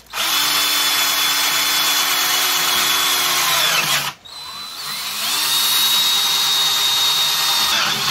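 Black & Decker 12-volt cordless drill boring a hole through a metal side-mount number-plate bracket, with a steady high whine. It runs for about four seconds, stops briefly, then starts up again and runs on.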